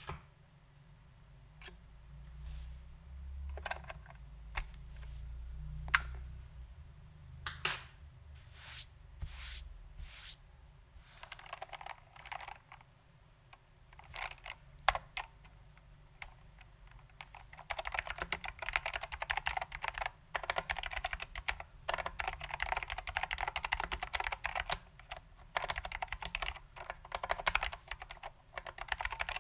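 Mechanical keyboard with lubed SKCM Salmon Alps switches and ALPS doubleshot keycaps being typed on: scattered single key presses at first, then fast, continuous typing from a little past halfway.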